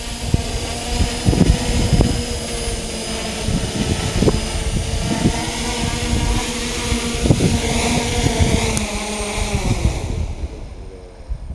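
Multirotor drone's electric motors and propellers whining steadily in a low hover. Near the end the pitch falls and the motors spin down and stop as it lands. Wind thumps on the microphone throughout.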